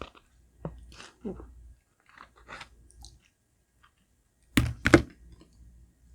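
Close-miked chewing and wet mouth smacks from someone eating soft pan-fried radish cake. There are scattered small clicks, with two louder smacks close together about four and a half seconds in.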